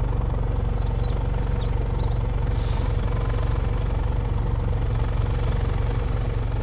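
Steady low engine drone from the electrofishing boat's portable generator and outboard motor running together as the boat moves across the pond.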